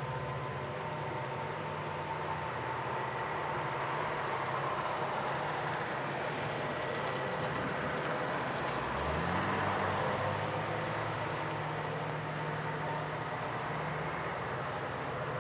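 EMD diesel locomotives working upgrade on an approaching freight train, their engines running under load with a steady drone that rises in pitch about nine seconds in.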